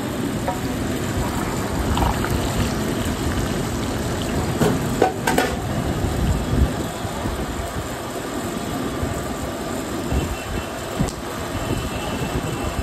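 Hot oil sizzling and bubbling on a large flat tawa as wet raw mutton brains are tipped in from a perforated steel bowl and fry, over a steady low rumble of background noise. A few sharp clatters come about five seconds in.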